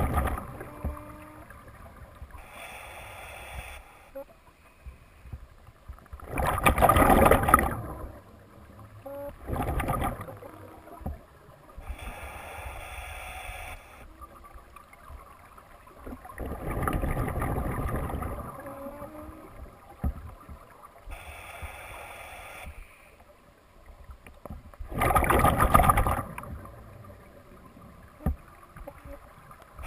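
Scuba diver breathing slowly through a regulator underwater. Each inhale is a quieter hiss, and each exhale is a loud rush of bubbles, repeating roughly every eight seconds.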